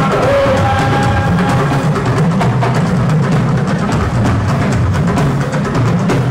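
Loud music driven by dense, rapid drumming and percussion, with a few held notes over it.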